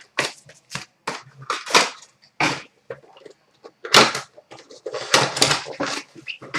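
A box of trading cards being opened and handled: an irregular run of short rustling, scraping and tearing sounds from cardboard and pack wrappers.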